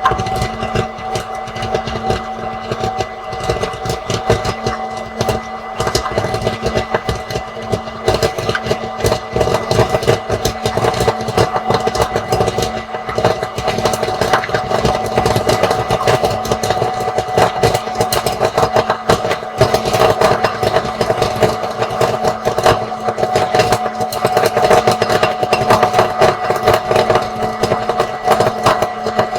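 Small electric popcorn machine running: a steady motor hum under rapid, continuous popping of kernels, the pops growing denser from about a third of the way in.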